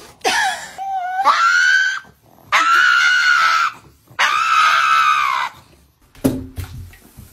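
A dog screaming: three long, high-pitched cries, the first rising in pitch and the next two each held for about a second.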